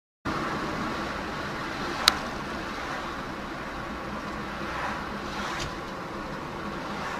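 Steady road and engine noise of a car driving, picked up by a dash camera inside the cabin, with one sharp click about two seconds in.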